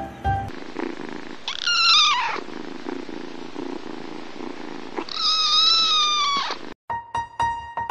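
Tabby kitten meowing twice, a shorter falling meow and then a longer one, over a soft purr. Piano music comes in near the end.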